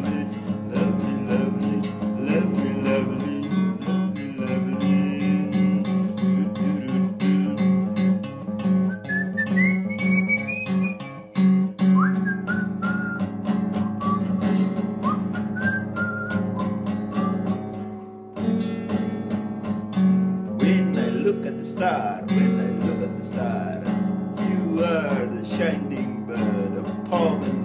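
Music with a strummed acoustic guitar. A high, gliding melody line comes in about nine seconds in, and there is a short break about eighteen seconds in.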